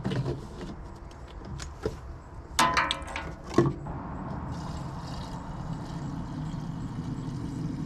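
Clicks and knocks of a chainsaw's fuel cap and gas can being handled, with a louder clunk about two and a half seconds in and another a second later. A steady engine hum runs underneath.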